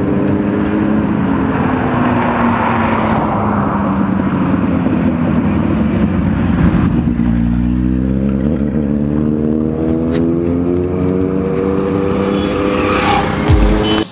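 Motorcycle engine heard from the moving bike, with wind noise over the microphone: its pitch falls as the bike slows for the first several seconds, then climbs steadily as it accelerates from about halfway.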